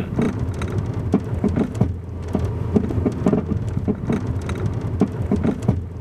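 Worn sway-bar end links knocking as the car drives over uneven road: a quick, irregular series of clunks over a steady low road rumble, heard inside the car's cabin. The knocking is the sign of end links worn at their joints.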